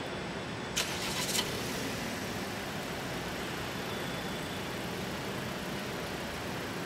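New Volvo S60 idling steadily: an even low hum with hiss. A short run of sharp clicks comes about a second in.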